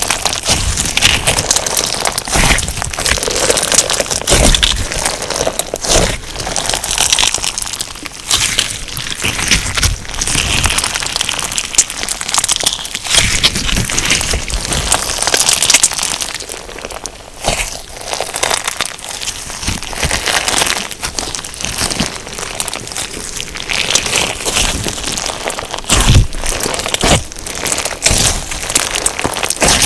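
Crunch slime filled with sugar beads being squeezed and pressed by hand: a dense, continuous crunchy crackling of the tiny beads, easing off briefly a little past halfway.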